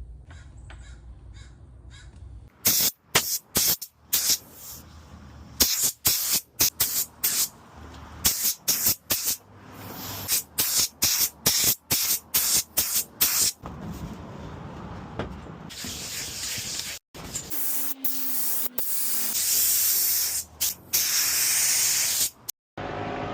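Hissing spray in many short bursts, a fraction of a second each, then longer spells of hiss in the second half.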